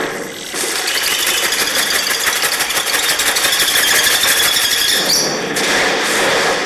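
Test audio played back by a CMF Phone 1: a loud, harsh, noisy sound with a fast rattling pulse and a thin high tone, which changes character about five seconds in.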